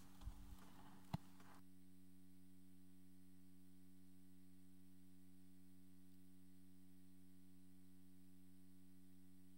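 Near silence with a steady electrical hum from the sound system. A few faint knocks and one sharp click come in the first second or so; then the room sound cuts out suddenly and only the hum remains.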